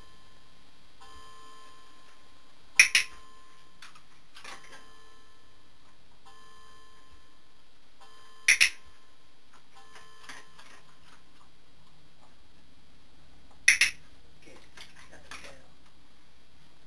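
A dog-training clicker sounding three times, about five and a half seconds apart, each a sharp double click as it is pressed and released, marking the moment the dog performs the wanted behaviour. Fainter ticks come between the clicks.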